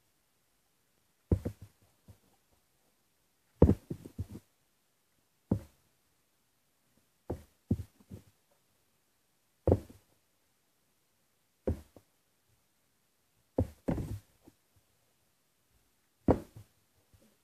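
A plastic water bottle being flipped and landing with a thud about eight times, roughly every two seconds, several landings followed by one or two quick bounces.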